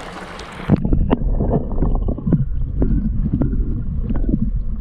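Stream water rushing, then from just under a second in the sound turns muffled and rumbling, with gurgles and many sharp knocks, as heard with the microphone dipped under the stream water while a trout is released.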